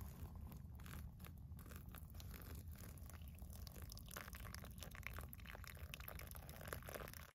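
Hot water poured from a small camp-stove pot into a paper filter cone in a mug: a faint trickle with many small crackles of wet paper.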